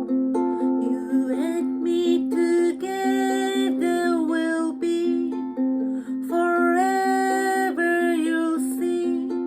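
Low-G tuned ukulele playing an evenly repeating picked accompaniment in the key of F, with a voice singing the melody over it from about a second in.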